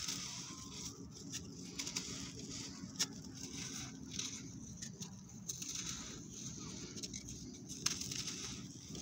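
Dry clods of compacted sandy dirt crunching and crumbling in a hand, the loose grains pattering down onto dirt in repeated pours. Two sharper cracks come as pieces break, about three seconds in and near the end.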